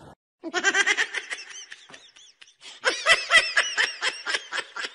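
A person laughing in a quick run of short, high-pitched giggles. The laughter starts about half a second in, breaks off briefly past the middle and picks up again.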